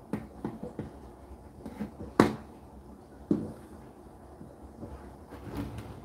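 Indesit IDC8T3 condenser tumble dryer running, the load tumbling in the drum: irregular knocks and thuds over a low steady hum, the loudest about two seconds in and another just after three seconds.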